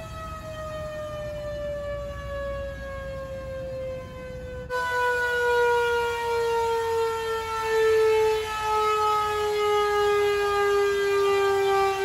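Air raid siren sounding the daily start-of-curfew signal: one long wail with many overtones, slowly falling in pitch, that becomes suddenly louder about five seconds in.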